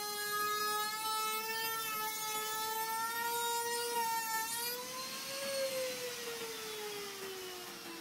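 High-speed electric power-tool motor whining at a steady pitch. About five seconds in a hiss comes in and the whine slowly falls in pitch as the motor winds down.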